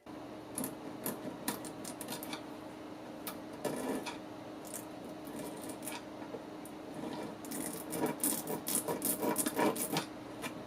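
Scrapes and light knocks of a wooden box being handled and worked by hand, becoming busier near the end, over a steady low hum.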